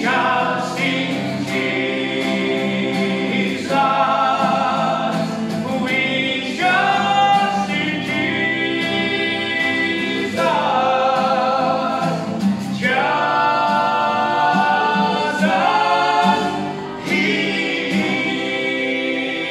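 Male vocal quartet singing a gospel song in close harmony, holding long notes, accompanied by a strummed acoustic guitar.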